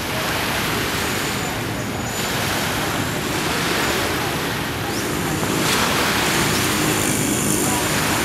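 Small waves washing onto a sandy beach: a steady rushing noise that swells and eases every couple of seconds, with a faint low engine hum in the second half.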